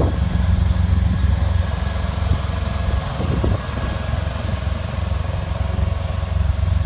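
Semi truck's diesel engine idling with a steady low rumble.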